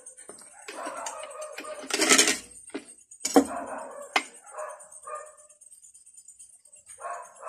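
A dog whining and barking on and off, with a few sharp clinks of a knife and fork against a plate.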